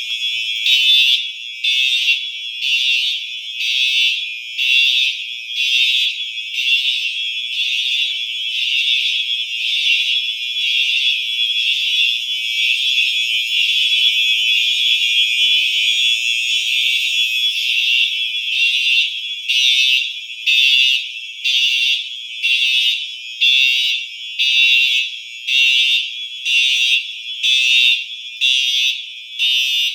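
Fire alarm horns sounding with a loud, high-pitched tone that pulses about once or twice a second. In the middle stretch the pulses blur together into a near-steady sound, then stand out clearly again near the end.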